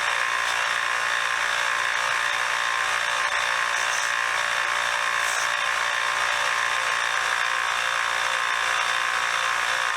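Belt sander running a surface conditioning belt, with a steady, even whine, used to scrub rust and grime off a steel screwdriver tip.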